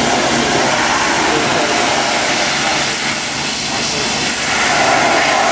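Pressure washer wand spraying a high-pressure jet of water against the metal housing of a commercial kitchen exhaust fan: a loud, steady hiss of spray.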